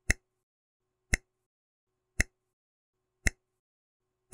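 Countdown-timer tick sound effect: a sharp tick about once a second, four times.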